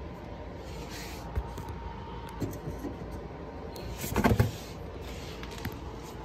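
Hands working at the headlight and its wiring connector through a plastic wheel-well access hole: a few light clicks, then a short burst of rattling and scraping about four seconds in, over a steady background hum.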